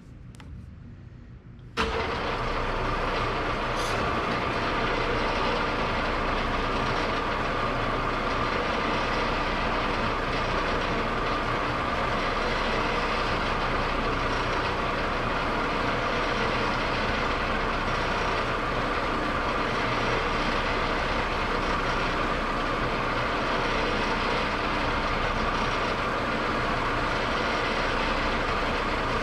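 Metal lathe running with its chuck spinning, a steady mechanical hum and whir that comes in suddenly about two seconds in and holds even throughout.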